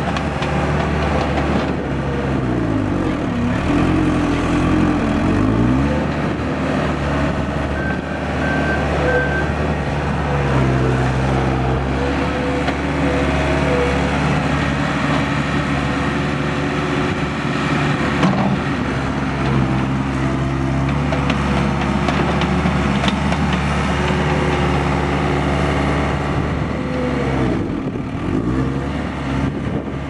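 Case 1845C skid steer's four-cylinder diesel engine running as the machine drives and works. The engine note holds steady, dropping in pitch and climbing back twice, near the start and again near the end.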